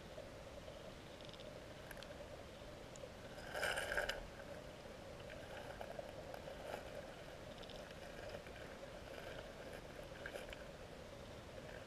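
Underwater sound of a freshwater stream picked up through a GoPro's waterproof housing: a steady, muffled hum with scattered clicks and ticks, and one louder, rougher burst about four seconds in.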